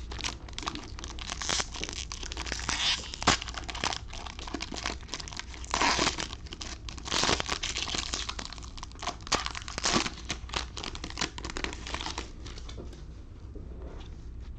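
Foil wrapper of a trading card pack crinkling and tearing as it is ripped open and handled, in uneven bursts that settle down near the end.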